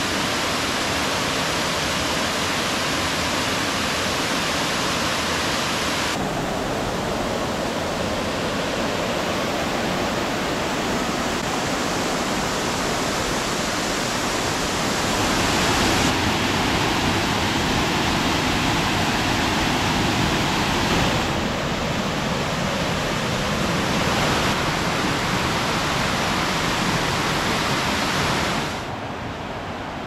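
Waterfalls rushing: a steady wash of falling water, beginning with Ninai Falls' twin cascades plunging into a pool. The sound shifts suddenly several times as one stretch of falling water gives way to another, and grows quieter near the end.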